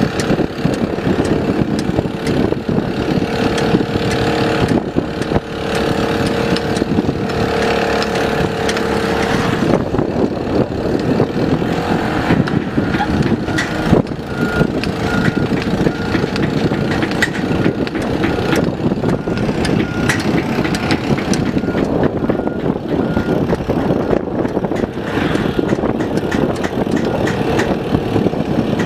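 Mini excavator's diesel engine running steadily under working load, with a whining tone from about 3 to 9 seconds in. An alarm beeps about once a second through the middle.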